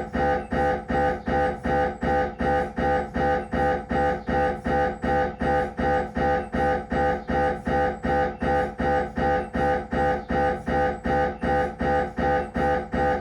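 Siemens Magnetom Avanto 1.5-tesla MRI scanner's gradient coils running a head-scan sequence: a steady, even train of loud pitched buzzing pulses, about three a second.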